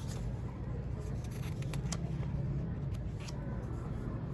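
Mechanical keyboard keystrokes: scattered clicks, a short run about one and a half seconds in and another a little past three seconds, over a steady low rumble.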